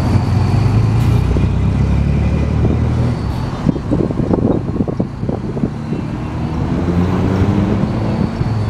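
Mercedes-Benz city bus's diesel engine running at a stop, with a cluster of knocks and rattles about four seconds in. Near the end the engine note rises as the bus pulls away, with traffic going by.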